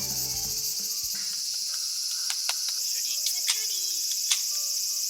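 Dense, steady high-pitched drone of summer insects. Background music fades out within the first second, and a few sharp clicks and knocks come in the second half.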